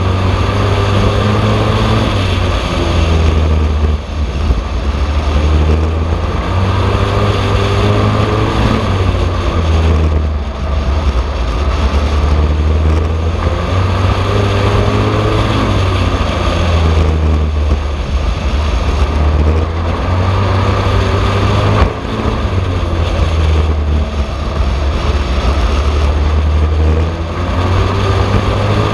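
A Super Pro racing truck's engine at racing speed, heard from on board. The revs climb and fall again and again as it laps the oval, with brief drops as the throttle comes off.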